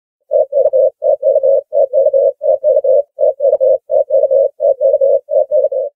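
Ring-necked dove cooing: a low coo in quick groups of three notes, repeated eight times at an even pace.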